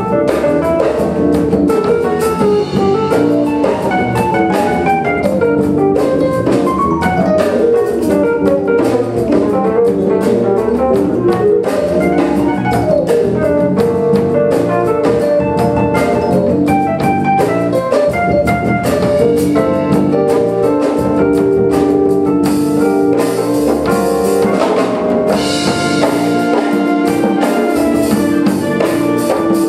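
A live concert band of brass and reeds with drum kit, electric guitar and keyboard playing an instrumental piece, the drums keeping a steady beat under sustained horn notes.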